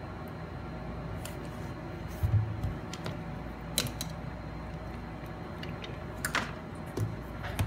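A laptop being handled on a desk: a few soft knocks and clicks as it is moved and turned, the loudest a low thump about two seconds in, over a steady low hum.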